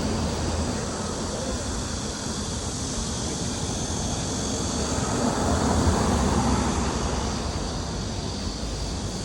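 Steady rushing noise of a moving vehicle, swelling a little about two-thirds of the way through.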